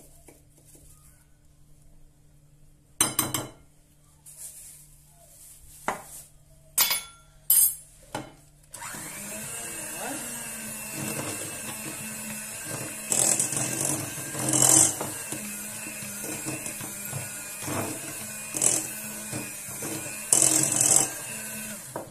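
Electric hand mixer running steadily from about nine seconds in, its beaters working cornstarch into a soft cookie dough in a glass bowl and knocking against the bowl now and then. Before it starts, a few sharp knocks.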